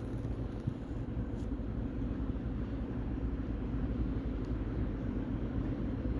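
ChS4 electric locomotive standing at a platform with its machinery giving a steady low hum.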